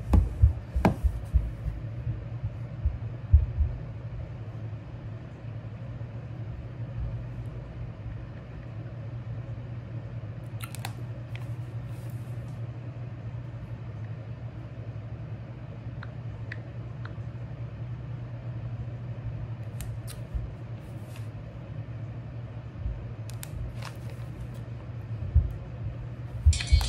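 Steady low room hum with a few low handling thumps in the first few seconds, then scattered light clicks and taps from handling a pen, notepad and phone.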